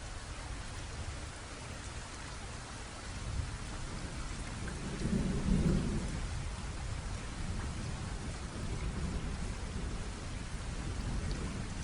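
Steady rain falling, with a low rumble underneath that swells briefly about halfway through.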